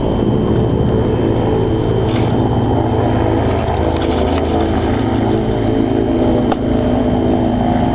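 Electric milkshake mixer motor running steadily, with a couple of short clicks partway through.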